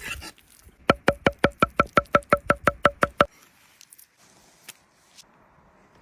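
A rapid run of about fourteen even, sharp knocks with a ringing pitch, about six a second, which stops suddenly a little over three seconds in.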